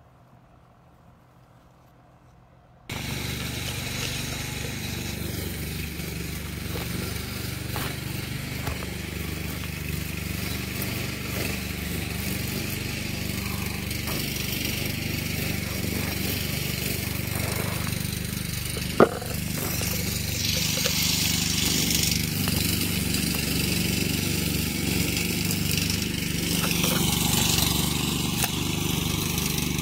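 Near silence for the first few seconds, then a small engine cuts in suddenly and runs steadily, with one sharp click about two-thirds of the way through.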